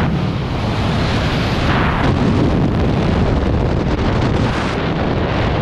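Freefall wind rushing hard over the skydiver's camera microphone, a loud, steady roar. Near the end the high part of the rush thins as the fall slows under the opening parachute.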